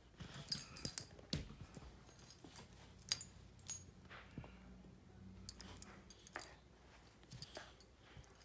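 Metal dog collar tags jingling and clinking in scattered bursts as a golden doodle mounts a springer spaniel and the two shuffle about, with a few sharp clicks and taps of paws on the hardwood floor.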